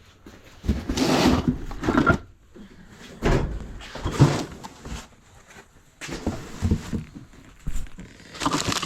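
Boxes and their contents being handled and rummaged through: several separate bouts of bumping, knocking and scraping.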